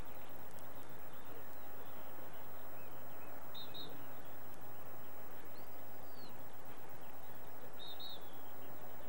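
Steady open-field background noise with a few short bird chirps: a quick double chirp about three and a half seconds in, a brief arched call near six seconds, and another double chirp about eight seconds in.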